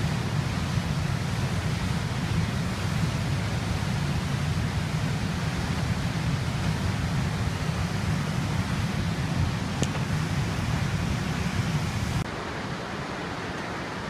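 Steady rushing of running water, heaviest in the low end. About twelve seconds in it drops suddenly to a quieter, thinner rush.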